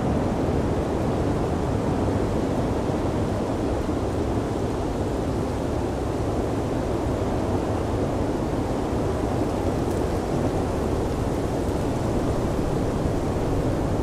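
Steady blizzard wind: an even, unbroken rush with most of its weight low in pitch.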